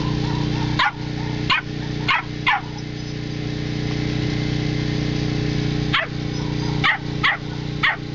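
A dog barking: four short barks in quick succession about a second in, then four more from about six seconds in. Behind them runs a steady low mechanical hum.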